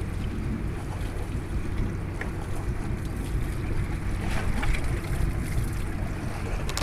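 Fishing boat's engine running with a steady low hum, mixed with wind buffeting the microphone and water washing past the hull; a sharp click near the end.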